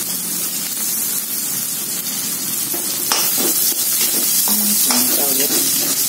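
Chopped ginger, garlic and shallots sizzling steadily in hot oil in a wok whose nonstick coating has worn off, with a steel spatula scraping and stirring them a few times from about three seconds in.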